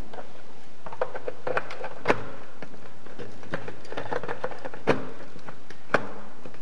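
Plastic clicking and knocking as the ring-shaped head of a bladeless fan is fitted and pressed onto its plastic base. Three sharper knocks come about two, five and six seconds in.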